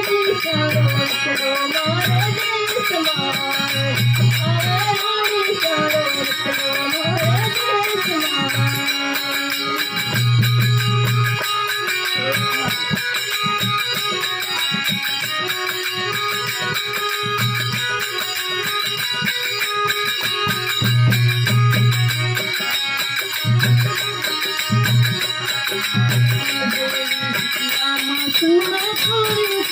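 Instrumental passage of Rajasthani folk devotional music (bhajan): a melody line that wavers up and down over the first nine seconds or so, over steady higher tones, with low drum beats and rattling percussion.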